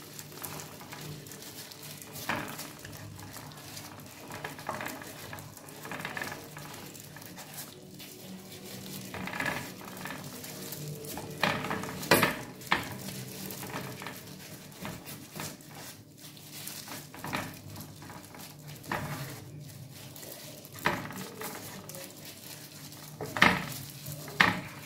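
Gloved hands rubbing a wet spice marinade into raw potato slices in a nonstick pan: soft squishing and irregular light knocks of the slices against the pan, two of them louder, about halfway and near the end. A faint steady hum lies underneath.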